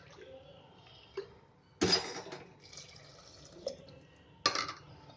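Water poured into a pressure cooker onto fried rice and vegetables, in two short splashing pours about two and a half seconds apart.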